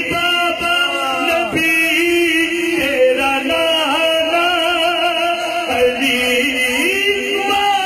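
A voice chanting a devotional manqabat in praise of Ali, drawing out long, wavering sung notes.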